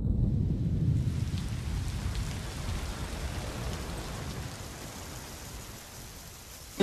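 Rolling thunder over a steady hiss of rain, the low rumble loudest at first and slowly dying away.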